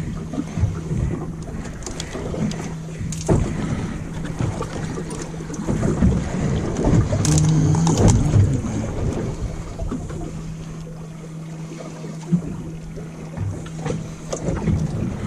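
Boat engine idling with a steady low hum, with wind buffeting the microphone. Scattered knocks and rustling come from hands handling the fishing rig, busiest around the middle.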